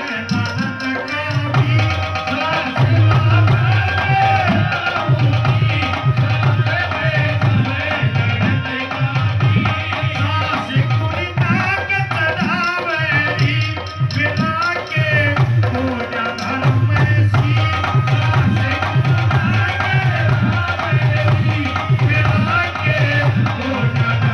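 Indian folk-pop song played loud over a DJ sound system, with a steady, heavy drum beat and a melody line over it.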